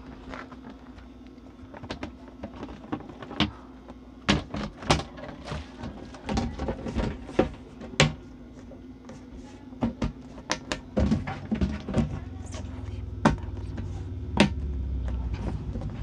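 Hard clear plastic flip-top storage bin being handled, its lid and body knocking and clicking together in an irregular string of sharp taps and thunks, several of them loud.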